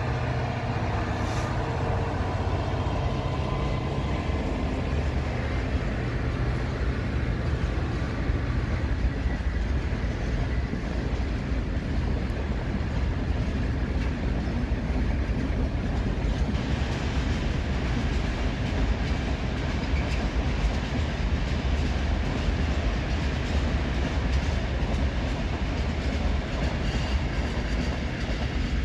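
Class 66 diesel locomotive running as it passes at the head of a coal train, its engine note clear for the first few seconds. Then the steady rumble and clickety-clack of a long string of hopper wagons rolling by.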